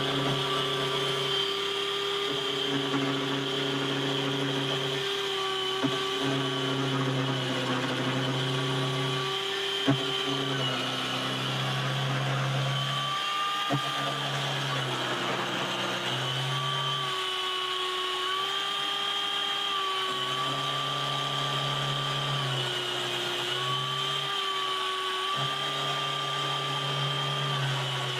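Homemade lathe running: its electric motor and drive give a steady whine whose pitch dips slightly and recovers every few seconds. A few sharp clicks are heard, the loudest about ten seconds in.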